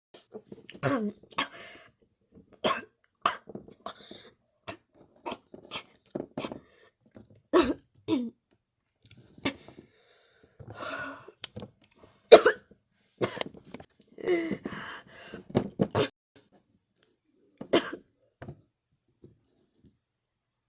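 A person coughing over and over in harsh, ragged fits, with throat clearing, acted out as a sick character's coughing attack; the coughs die away a couple of seconds before the end.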